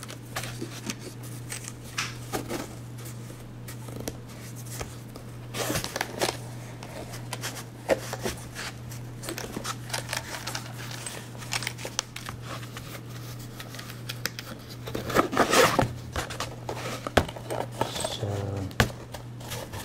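Zipper on a fabric-covered hard-shell carrying case being pulled open in several short rasps, with handling scrapes and clicks; the loudest rasps come about six seconds in and again around fifteen seconds. A steady low hum runs underneath.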